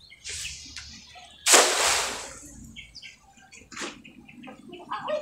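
A loud splash or rush of water about a second and a half in that fades over about a second, with short high bird chirps later.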